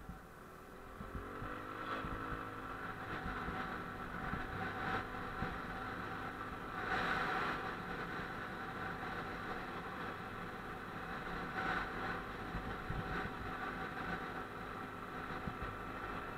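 Motorcycle engine running while riding, with wind rush; the engine note rises as it accelerates about a second or two in, then holds fairly steady.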